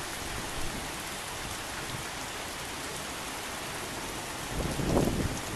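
Steady rain falling, an even hiss with no music over it. A louder, rougher surge comes in low down about four and a half seconds in.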